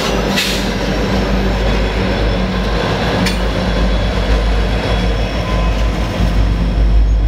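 Two Norfolk Southern diesel helper locomotives pushing at the rear of a double-stack intermodal train go past, engines running under load with a steady low rumble and wheels rolling on the rail. A brief high squeal comes about half a second in, and a sharp click a little after three seconds.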